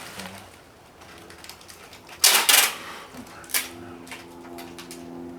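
Packing materials being handled: one loud, short rustling burst about two seconds in, followed by a sharp click a second later, with a faint steady hum in the second half.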